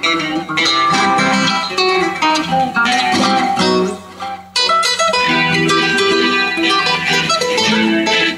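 Two acoustic guitars playing a fast flamenco-style duet in quick plucked runs. The playing drops away briefly about four seconds in, then comes back in suddenly and loud.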